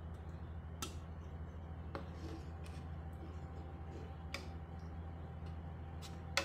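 Steel spoon stirring curry in a metal pan, clinking against the pan four times, loudest near the end, over a steady low hum.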